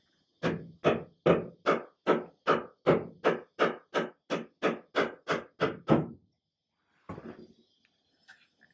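Rubber mallet striking a wooden chair leg in a quick, even run of about sixteen blows, roughly three a second, knocking a doweled joint apart. One more single knock follows about a second later.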